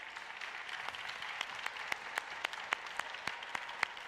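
An audience applauding: many hands clapping in a steady wash, with some single claps standing out sharply.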